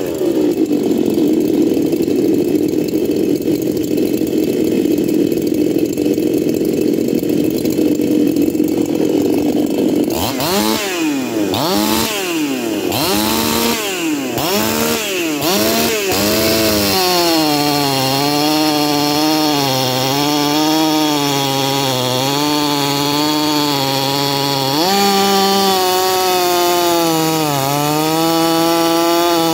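Ported 50cc two-stroke chainsaw running at high revs. Around the middle the throttle is blipped repeatedly, the pitch rising and falling. Then the saw settles into a steadier, wavering note, with the revs dipping and recovering under load near the end as it cuts into the log.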